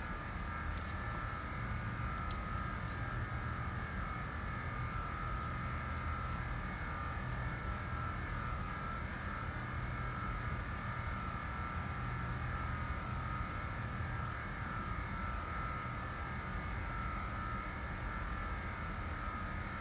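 Steady low hum with a faint, constant high whine and a few faint ticks.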